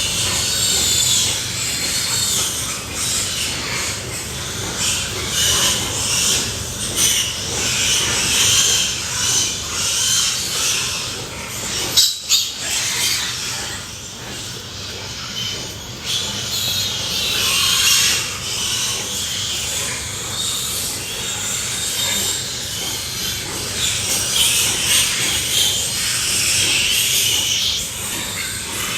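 Pigs squealing and grunting, many voices overlapping in a continuous, restless din, with a brief break about twelve seconds in.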